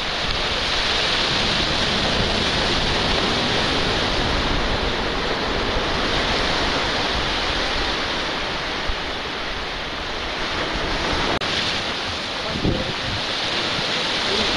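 Sea surf washing and breaking against the rocks of a stone breakwater, a steady rush, mixed with wind noise on the microphone.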